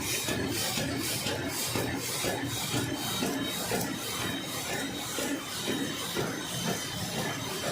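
Roll-to-sheet cutting machine running, with a rhythmic hiss repeating about two and a half times a second over a steady mechanical din.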